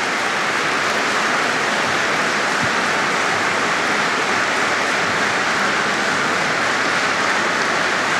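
Large audience applauding steadily: many hands clapping at once in a dense, even wash of sound.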